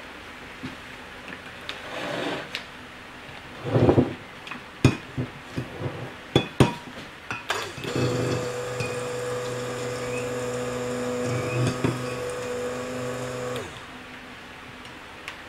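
Several knocks and clinks of utensils against the containers, then a stick blender runs steadily for about six seconds in a jug of cold-process soap batter, mixing lye into the oils, and cuts off sharply.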